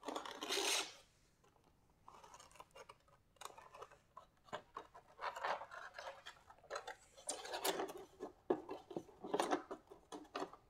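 Packing material being handled as statue parts are unpacked: irregular rubbing, scraping and rustling, with a short, louder burst of rubbing in the first second.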